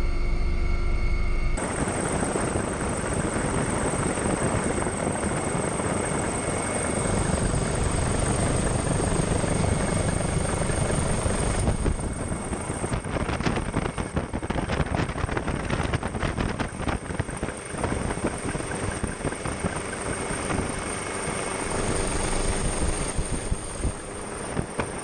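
Helicopter rotor and engine noise heard from aboard the aircraft: a steady loud rush that turns choppy and pulsing from about halfway through.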